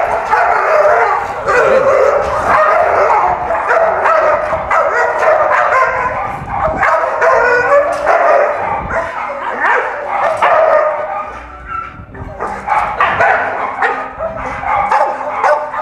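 Dogs barking, yipping and whining almost without pause, a leashed pit bull among them, worked up at another dog through kennel bars: agitation that the handler reads as the pit bull wanting to bite. It eases off briefly past the middle, then picks up again.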